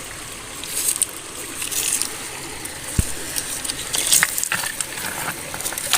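Shallow water running steadily, with scattered small splashes and clicks at irregular moments and a single low thump about three seconds in.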